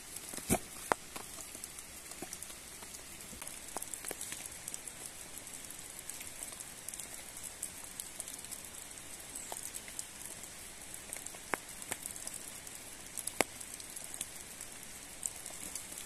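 Wood and twigs snapping and cracking now and then, a few sharp cracks standing out, over a steady outdoor hiss.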